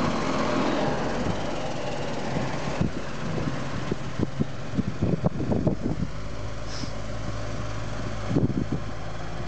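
Large farm tractor's diesel engine running steadily as the tractor drives away across a maize silage clamp, fading slightly. Scattered short low thumps come in the second half.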